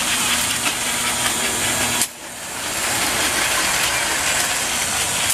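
American Flyer S gauge steam locomotives and their cars running around a small figure-eight track: steady motor hum and wheel noise on the rails with rapid clicking. The sound cuts off suddenly about two seconds in and builds back up.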